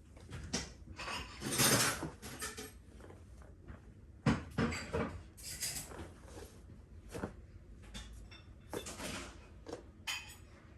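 Rustling of clothing and soft knocks as a person does a full prostration bow, kneeling down to the floor and rising again. Several short rushes of rustle come between the knocks, the sharpest knock a little past four seconds in.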